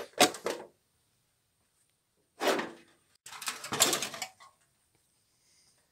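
Short bursts of rough scraping and rubbing, as from a hand brushing over rusted sheet steel: one just at the start, then a short one about two and a half seconds in and a longer, choppier one a second later.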